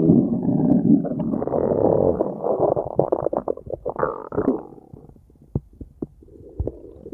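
Stomach growl sound effect: a stomach rumbling and gurgling in a dense, bubbling churn that thins out after about four and a half seconds into a few scattered pops and squelches.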